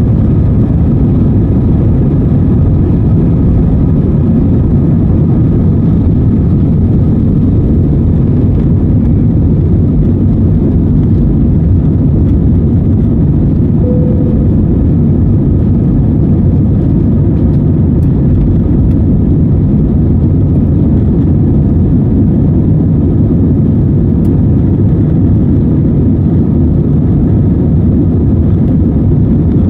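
Jet engines of an Airbus A320-family airliner at takeoff power, heard from inside the cabin: a loud, steady low rumble through the takeoff run, lift-off and initial climb.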